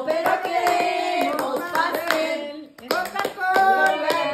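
People singing a birthday song while clapping along in time, with a short break in the singing about two and a half seconds in.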